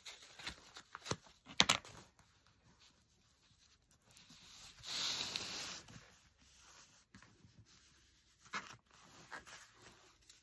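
Handling noise of a vinyl-and-canvas pouch being turned right side out with a letter opener used as a turning stick. A few sharp clicks and taps come in the first two seconds, then a rustling rub of about a second midway as the pouch is pressed flat on the cutting mat, and lighter rustles and taps near the end.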